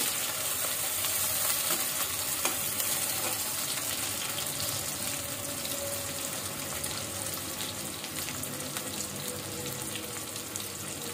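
Sliced onions sizzling and crackling in hot oil in an aluminium kadai, stirred with a perforated metal spoon, as they fry toward golden brown. A single sharp knock comes about two and a half seconds in.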